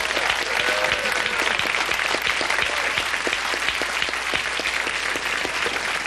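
Studio audience applauding, many hands clapping at a steady level.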